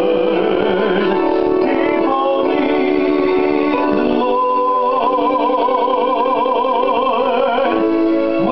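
Gospel accompaniment music with keyboard chords and long held notes with a wide vibrato, a high one sustained about halfway through.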